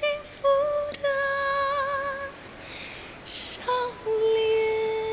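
A woman singing a slow, gentle song in long held notes with vibrato. There is a short break midway, then a long steady note near the end.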